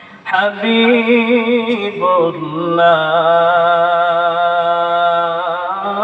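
A man singing a Bengali Islamic devotional song (gazal) in a drawn-out, ornamented melody. After a short pause for breath the voice comes in, moves through several notes, and from about three seconds in holds one long note with a wavering pitch.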